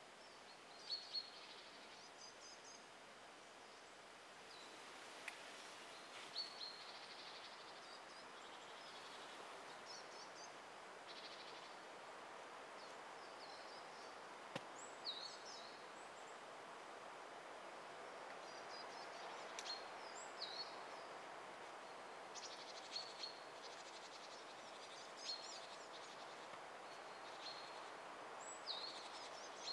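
Faint woodland ambience: small birds giving short, high, quickly falling chirps every few seconds over a soft steady hiss, with a couple of faint clicks.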